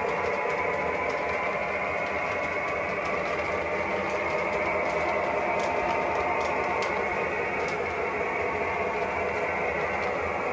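Lionel O gauge train of 6464-series boxcars rolling steadily along the track: a continuous whirring rumble of wheels on rails, with a few faint clicks about halfway through.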